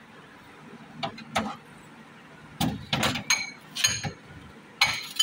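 Ceramic bowls and a glass dish knocking and clinking against each other and the fridge's glass shelves as they are handled, a series of short sharp knocks, some with a brief ring.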